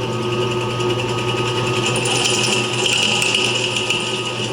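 Electric drill turning a cobalt bit slowly under steady pressure, cutting into a broken steel bolt lubricated with cutting oil. The steady whine grows stronger about two seconds in and stops suddenly near the end.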